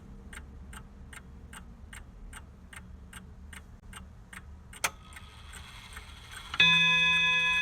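Pendulum clock ticking steadily, about two and a half ticks a second, then a single sharp click, and near the end a loud chime of held, bell-like tones strikes in.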